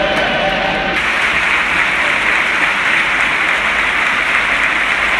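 Large football stadium crowd applauding and cheering, a dense, steady sound that grows fuller about a second in.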